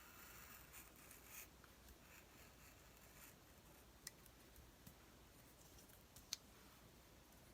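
Near silence with faint rustling of paper cutouts being handled in the first second and a half, and two soft clicks later on.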